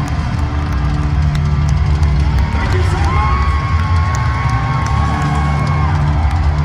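Hard rock band playing live, loud and dense with a heavy bass and drum low end, and a high note held from about three seconds in until near six seconds; the crowd cheers over it.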